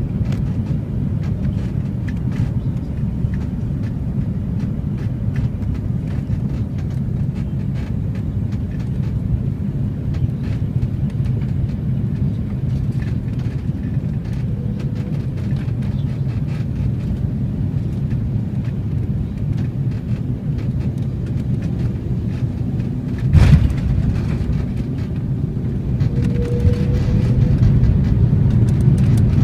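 Airbus A330-300 cabin noise on final approach: a steady low rumble of engines and airflow. About 23 seconds in there is a sudden thump as the main wheels touch down. Near the end the rumble grows louder as the airliner rolls out on the runway with its spoilers up.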